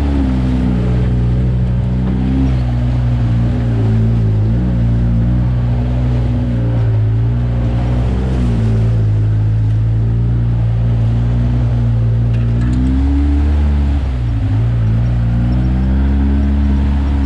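Side-by-side UTV engine running at low trail speed. Its pitch dips and rises as the throttle is eased off and reapplied, most clearly about thirteen seconds in.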